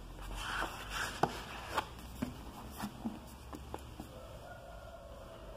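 Books being handled: a series of soft knocks and taps with some rustling of paper and covers. A faint drawn-out call or tone sounds in the background from about four seconds in.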